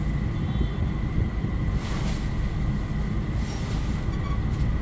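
Steady low rumble of road traffic and idling engines, heard from inside a parked car with its rear hatch open.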